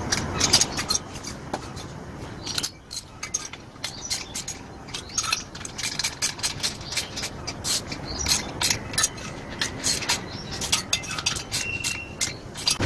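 Quick, irregular metal clicks and clinks of a hand tool and engine parts being handled while a blower engine's cylinder and block are put back together.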